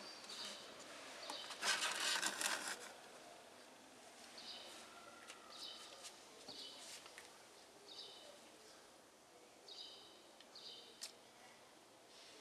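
A short burst of plastic rattling and rustling about two seconds in as a paper-lined plastic funnel is set into a plastic jerry can. After it, a bird gives short chirps every second or two.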